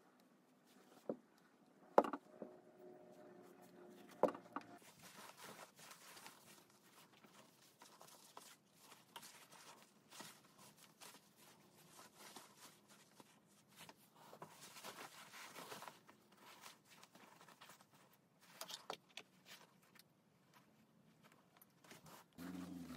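Silk pongee kimono fabric and facing pieces rustling and crinkling as they are handled and matched up, with a couple of sharp knocks about two and four seconds in. Near the end a sewing machine starts running steadily.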